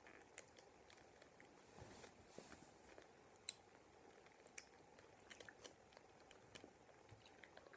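Faint chewing of a jelly bean: scattered soft mouth clicks and smacks over near silence.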